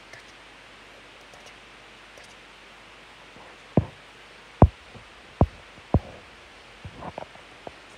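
Four loud, short, dull knocks a little under a second apart near the middle, then a few softer taps near the end, over a faint steady hiss.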